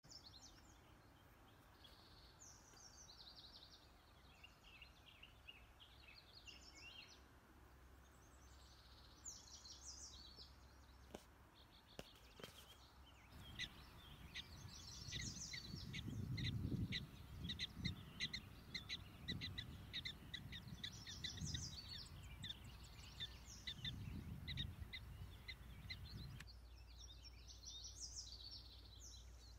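Faint outdoor birdsong: varied chirping phrases, with a run of short chirps repeated a few times a second through the middle. Gusts of wind buffet the microphone in the middle part.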